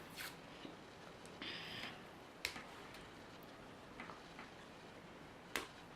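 Quiet handling of a hard plastic surprise-toy package being pried at: a few scattered sharp clicks, the loudest about two and a half and five and a half seconds in, and a short scrape about one and a half seconds in.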